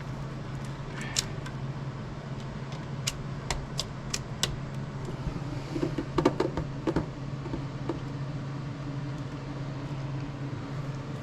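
Light clicks and taps of small hand tools and metal parts on a model helicopter frame as its bolts are loosened: a few single clicks, then a busier cluster about six to seven seconds in, over a steady low hum.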